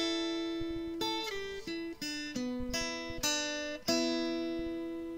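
Acoustic guitar music: single notes and chords plucked every half second or so and left to ring out.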